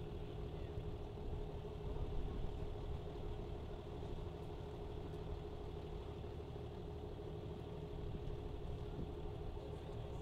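An engine idling steadily: a low rumble with a steady hum over it.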